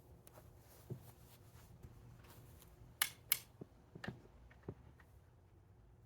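Faint scattered clicks and knocks of handling, about half a dozen over a few seconds, two close together near the middle, with no engine running.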